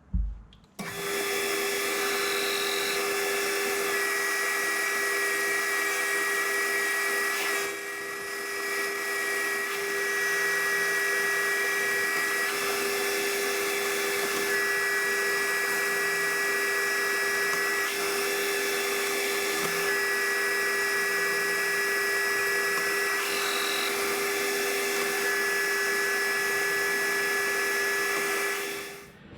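Metal lathe running steadily while turning a 4140 steel shaft down to form a tang, with a high whine that comes and goes about five times as the cut proceeds.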